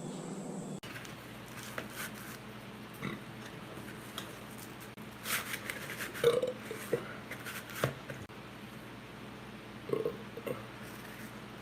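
A man burping: several short, separate burps, the loudest a little past halfway and two more close together near the end, with a few brief crackling noises in between.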